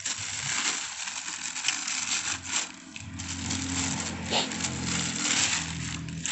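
Thin plastic bag crinkling and rustling as a rack-mount audio crossover is pulled out of it by hand, in an irregular crackle. A low steady hum joins underneath about halfway through.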